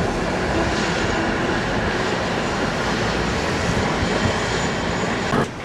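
Steady rumble of street traffic with a PCC heritage streetcar rolling along its track toward the listener, a faint steady hum running through it. The sound drops away abruptly near the end.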